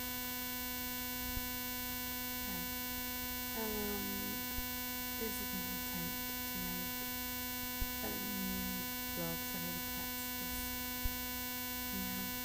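Steady electrical hum and whistle in the webcam's audio: a constant low buzz with a ladder of higher ringing tones stacked above it, unchanging throughout. It is a recording fault that buries the voice, with only faint fragments of speech coming through.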